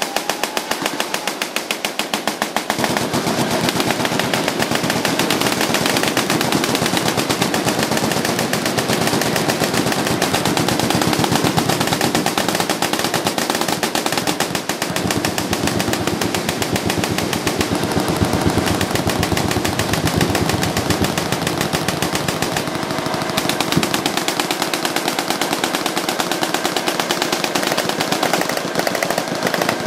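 Sustained machine-gun fire: a dense, unbroken rattle of rapid shots.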